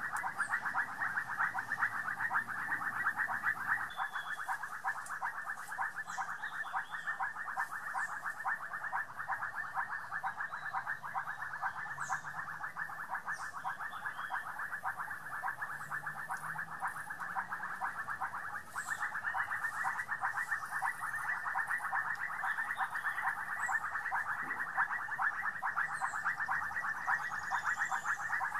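A dense chorus of calling frogs, a fast, even pulsing that never pauses, with a few faint, short, high chirps now and then.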